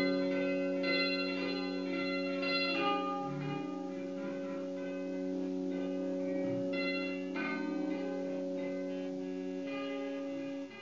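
Improvised experimental free-jazz music: several steady held drone tones under clusters of short ringing notes, the lowest drone dropping out near the end.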